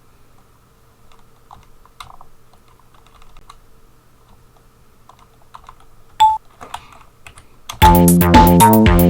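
Sparse computer-keyboard taps, with one short sampled note previewed about six seconds in. Near the end an Amiga-style tracker tune built from the original Amiga Soundtracker samples starts playing loudly: a melody over bass notes with drum hits.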